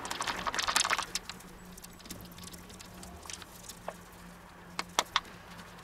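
Flour pouring from a paper bag into a stainless steel mixing bowl: a dense rustling hiss for about the first second, then a thinner trickle. A few sharp clicks come around the middle and near the end, the loudest pair about five seconds in.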